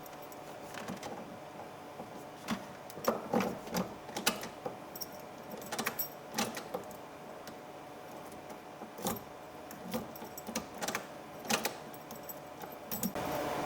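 Keys jangling with scattered clicks and knocks as a new ignition lock cylinder, key in it, is pushed into the steering column and seated. A steady hum comes in near the end.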